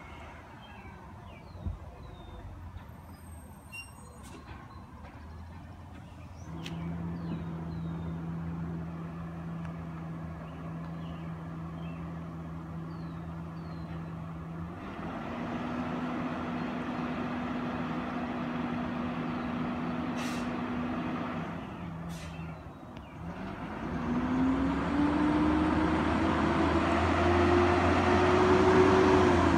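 Recycling truck's engine running with a steady low hum that steps up in pitch about fifteen seconds in, with two sharp air-brake hisses a couple of seconds apart. It then revs with a rising pitch as the truck pulls closer, loudest near the end. Birds chirp in the first few seconds.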